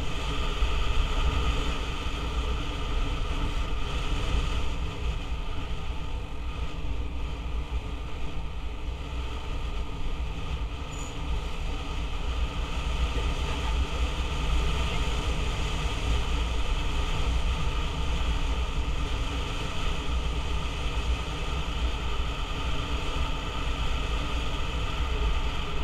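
Motor scooter riding steadily along a road, heard from a helmet-mounted camera: a constant low wind rumble on the microphone with the engine's steady running underneath.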